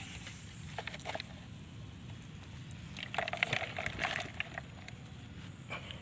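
Faint rustling and crunching of dry soil and weeds as a hand scrapes earth over a rat burrow to seal it, with a few scrapes about a second in and a busier run of them from about three to four and a half seconds in.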